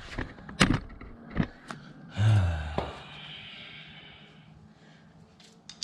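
A few sharp clicks of tools on metal, then, about two seconds in, a man's heavy sigh falling in pitch, its breathy hiss trailing off.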